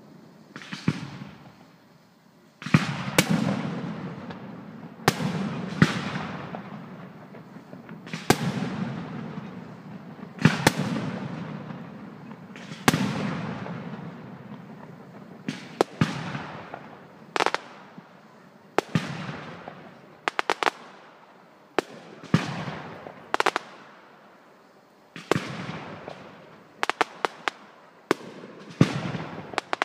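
Aerial firework shells bursting one after another, each sharp bang followed by a long, fading rolling echo, about every two to three seconds. Near the end come quick clusters of crackling pops.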